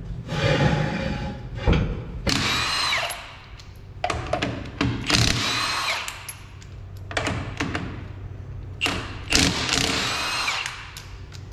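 Handheld power tool spinning in three bursts of about a second each, its whine bending up and down in pitch, used in taking apart the rear suspension of a Toyota Tacoma. Short clicks and knocks of tools come between the runs.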